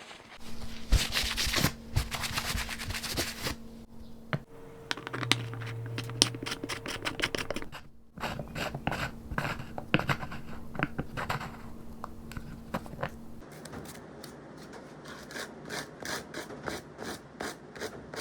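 Workshop handwork: irregular scraping and rubbing against a part, broken by many small clicks and taps.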